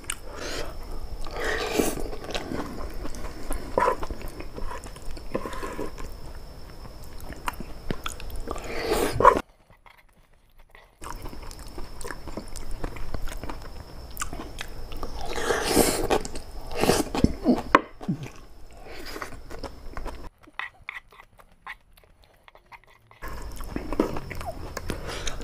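Close-miked chewing and biting of boiled papaya stems in spicy pecel sauce: irregular crunching and wet mouth sounds. Twice the sound drops out to near silence, once for about a second and a half and once for about three seconds.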